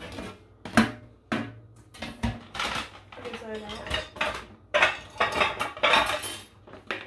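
Kitchen clatter: dishes and metal utensils clinking and knocking, with a run of irregular sharp clacks and scrapes.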